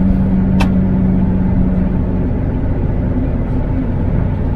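MAN TGX truck engine running under way, with a steady low rumble from the engine and road. Its steady note fades about two seconds in and a slightly higher note comes in later. There is a single sharp click about half a second in.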